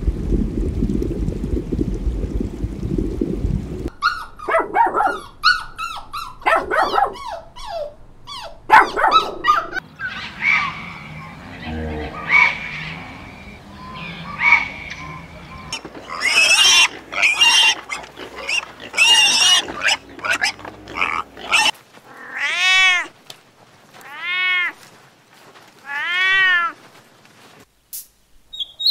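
A series of different animal calls and cries, one after another, after a low rumbling noise in the first four seconds. It ends with three separate calls, each rising and then falling in pitch.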